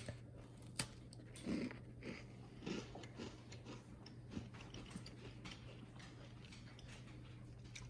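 Faint chewing of an oatmeal cookie: soft, irregular bites and chews every half second or so, with one sharp click about a second in, over a low steady hum.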